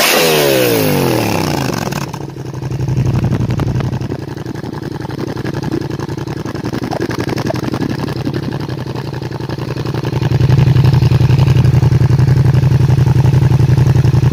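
Yamaha MT-07's 689 cc parallel-twin engine breathing through a short Dominator aftermarket silencer. The revs fall away from a throttle blip and settle to a steady idle about two seconds in. About ten seconds in the exhaust note gets louder while the pitch stays the same.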